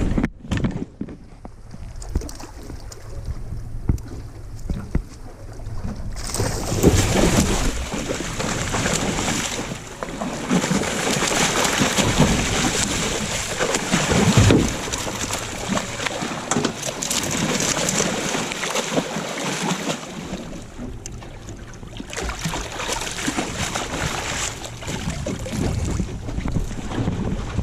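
A boat running on open water: wind buffets the microphone over the rush and splash of water along the hull, with occasional knocks. The noise gets louder and brighter about six seconds in.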